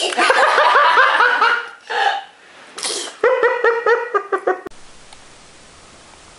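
Toddler laughing in two fits of quick, high-pitched ha-ha pulses, about six a second, with a short breathy burst between them. The laughter cuts off sharply about three-quarters of the way through, leaving faint room tone.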